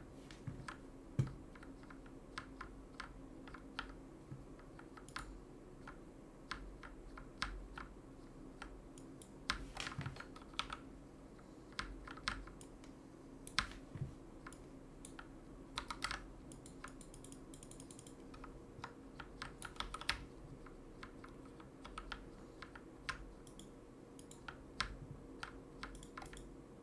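Irregular key presses on a Redragon Kumara mechanical keyboard refitted with Akko Matcha Green switches and foam, the key clacks made much less noisy by the swap, sometimes in quick runs of several keys as the keyboard is used for gaming. A faint steady hum sits underneath.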